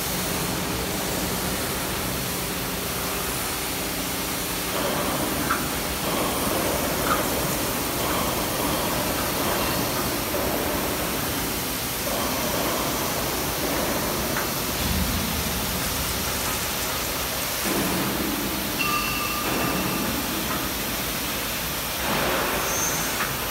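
CNC vertical machining center cutting steel under flood coolant: a steady hiss of coolant spray over the spindle and cutting noise. The noise swells and eases in stretches as the cutter works.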